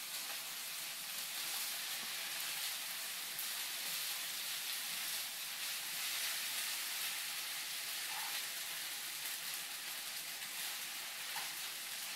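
Fried rice sizzling steadily in a hot pan.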